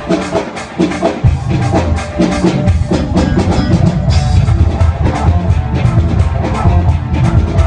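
Live band music with a steady drum-kit beat and heavy bass. The bass drops out briefly near the start and comes back in about a second in.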